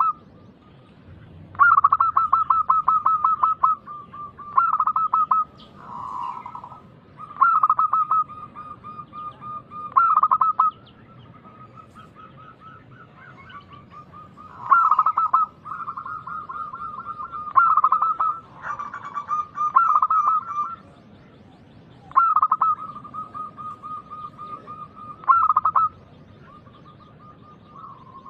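Zebra doves (perkutut) cooing: repeated phrases of rapid rolling notes that run into a held coo, about a dozen in a row, with a second bird overlapping at a slightly different pitch in places.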